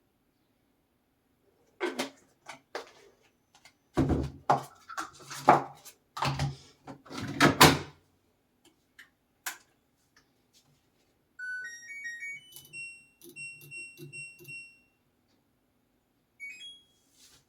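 Knocks and thuds as a washing machine is loaded and shut, then the machine's control panel plays a short rising melody of electronic beeps ending in a held tone.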